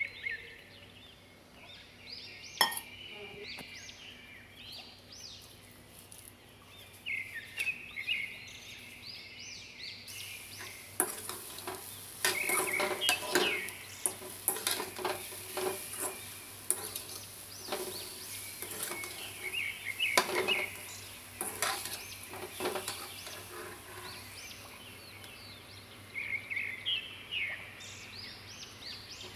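A metal slotted spatula stirring and scraping grated coconut in an aluminium kadai, with irregular clinks and scrapes against the pan over a steady hiss, starting about a third of the way in. Birds chirp before the stirring starts and again near the end.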